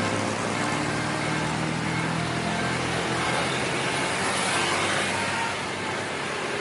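Tour bus engine running close by, with road noise. A steady engine drone is heard for about the first three seconds, then gives way to a broad rushing noise that swells near the end.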